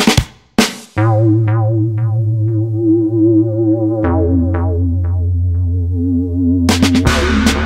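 Electronic background music. A few drum hits open it, then a held synthesizer chord with a wavering pitch sits over a deep bass. Short plucked notes fade out over it, the chord shifts about four seconds in, and busy drums come back near the end.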